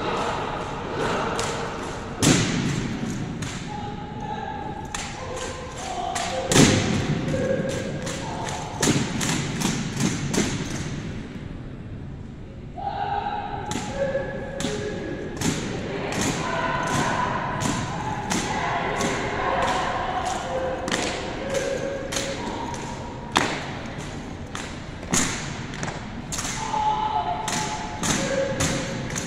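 An armed drill team's rifle drill: a long, irregular run of sharp knocks and thuds from drill rifles being slapped, spun and grounded on a concrete floor, together with boot stomps, often in quick clusters, with a short lull about halfway through.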